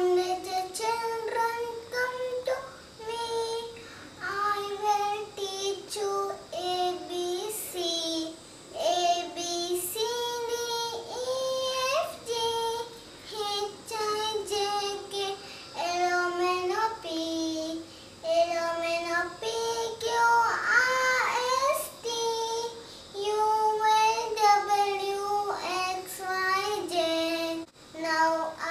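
A young girl singing a nursery rhyme solo and unaccompanied, in short melodic phrases with brief pauses between them.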